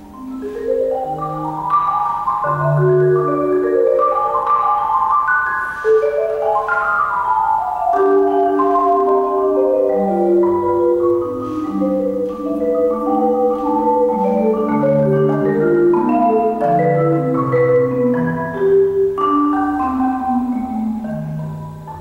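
Solo concert marimba played with mallets: fast runs of notes sweeping up and down across the keyboard, with deep low bars sounding beneath. It starts softly and builds over the first couple of seconds, then stays full.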